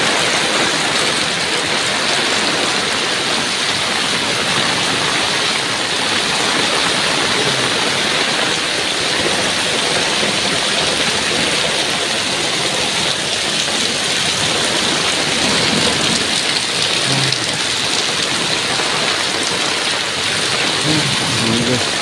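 Heavy rain pouring steadily onto a flooded paved lane, splashing on standing water.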